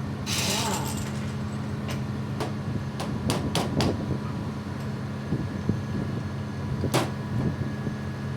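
Parts of an air gun being handled and fitted together during reassembly: a handful of sharp clicks and knocks, most of them in a cluster about two to four seconds in and one more near the end, over a steady low hum.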